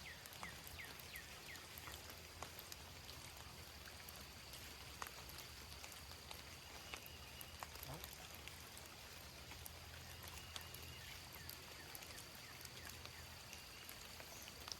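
Faint trickle of running water with scattered drips and small splashes.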